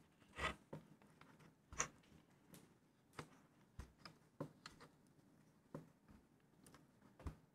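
Hand screwdriver driving a screw into wood: faint, irregular small clicks and creaks as the screw is turned a little at a time.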